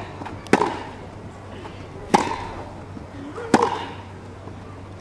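Tennis ball struck by rackets in a baseline rally: three sharp hits about a second and a half apart.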